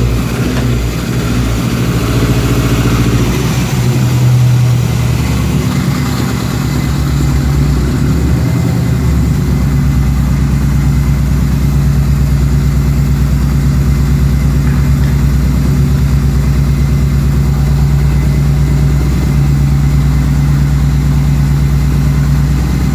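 Chevrolet S10 2.4 inline-four engine in a Willys Jeep running, its speed unsettled for the first several seconds before it settles into a steady idle about nine seconds in. The owner suspects one cylinder is misfiring, most likely from the ignition cables.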